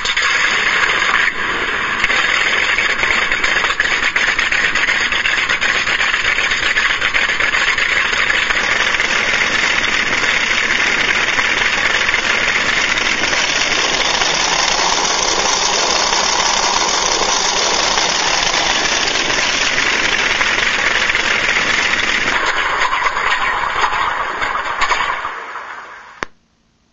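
Sampled WWII aircraft piston engine played back by an RC-model sound unit: it starts abruptly, runs steadily with a change in tone about halfway through, then winds down and stops near the end.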